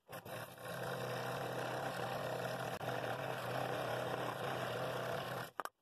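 Scroll saw running steadily, its reciprocating blade sawing through a walnut segmented-bowl blank, with a constant low motor hum under the cutting noise. It cuts off abruptly near the end.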